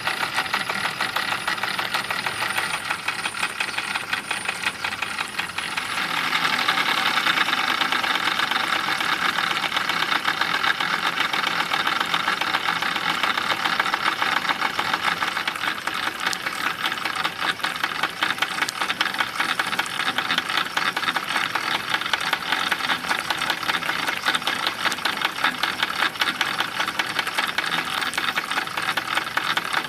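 RETROL SE-03 model live-steam mill engine running under steam: a fast, even ticking clatter from its small moving parts. It gets louder about six seconds in.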